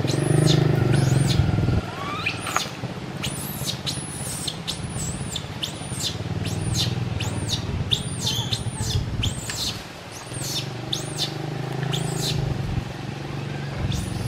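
Baby macaque giving a rapid series of short, high-pitched squealing calls, each rising and falling, about two a second with a couple of brief pauses. A low steady hum sits underneath at the start and again near the end.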